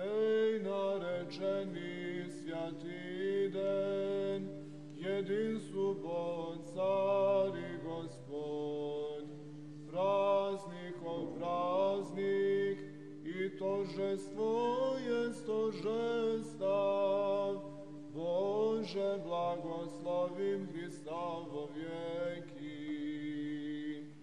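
Unaccompanied male voices chanting an Orthodox hymn, the melody moving over a steady held drone note.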